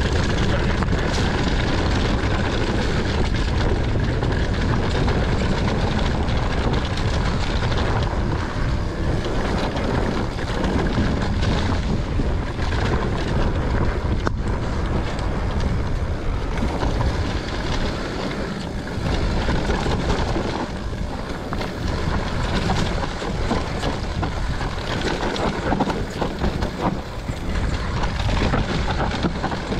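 Mountain bike riding fast down a dirt singletrack: tyres rumbling and crunching over dirt and stones, the bike rattling, and wind buffeting the camera microphone throughout.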